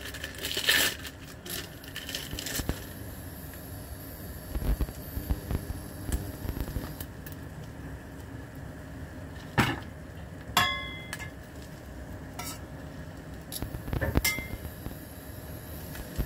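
Kitchenware clinking against a stainless steel frying pan: a few sharp metallic clinks with a short ringing tone, about ten seconds in and again near the end. There is soft rustling of food being handled near the start.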